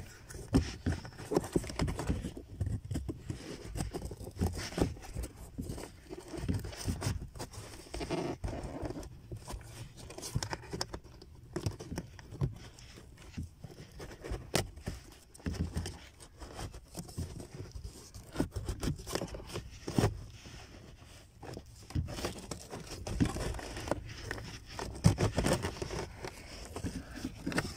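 Irregular plastic clicks, knocks and scraping as hands work the cabin air filter cover free in the footwell of a Nissan Rogue / X-Trail. Near the end the dirty pleated filter slides out of its housing.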